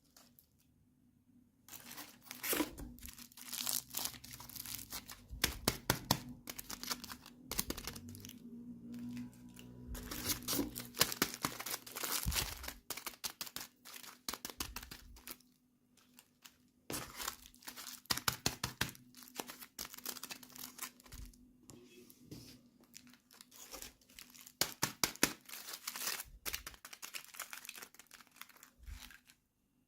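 Toy packaging being unwrapped by hand: irregular crinkling, tearing and small clicks that come in bursts, with a couple of brief pauses.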